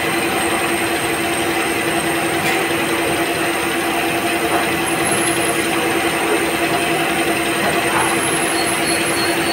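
LMW vertical machining centre drilling a copper workpiece with a twist drill: a steady machine hum with a constant high whine, and brief high squeals now and then as the drill cuts.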